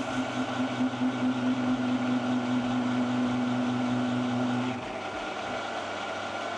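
Metal lathe running, turning a steel part, with a steady hum; the strongest part of the hum stops about five seconds in and the machine runs on a little quieter.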